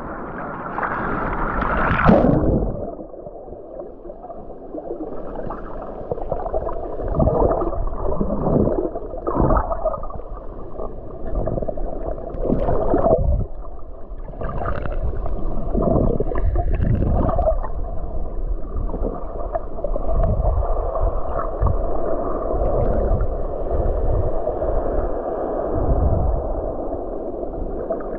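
Muffled rushing and gurgling of water heard underwater, with uneven surges every second or so. A brighter splashing swell comes first, then the sound turns muffled about two seconds in.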